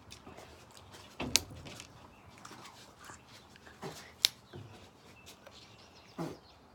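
Salted sunflower seeds being cracked and chewed, with two sharp cracks of the shells between the teeth about a second and four seconds in, among smaller clicks.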